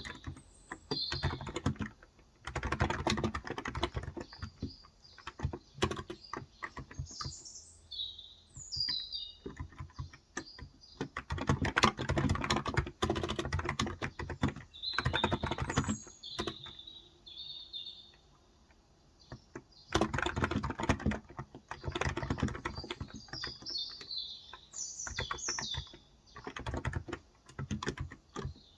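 Typing on a Cox Endeavor electro-capacitive (non-contact) 35 g tenkeyless keyboard: rapid key presses in bursts, with a short pause about two-thirds of the way through. Small birds chirp outside throughout, in short high calls.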